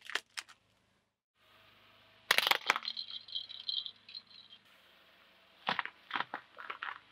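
A car tyre rolling over and crushing brittle objects on asphalt: a burst of loud cracks and crunches about two seconds in, followed by thinner squeaky crackling, then another run of sharp cracks near the end.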